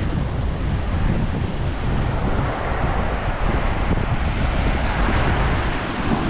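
Wind buffeting the microphone with a heavy low rumble, over the hiss of surf washing on the beach, which swells a little midway.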